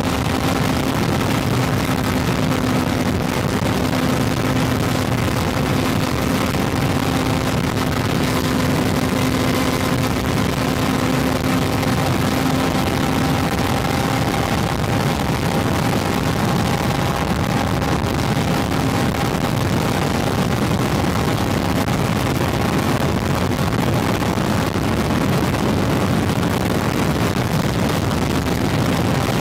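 Honda CB400 motorcycle engine running steadily at highway cruising speed, mixed with a constant rush of wind and road noise.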